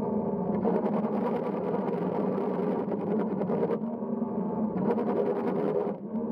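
Electric motors and propellers of a Waverunner Mark 3 bait boat running, heard underwater through a camera on its hull. A steady hum runs throughout, with a rush of churning water that comes in and drops out twice.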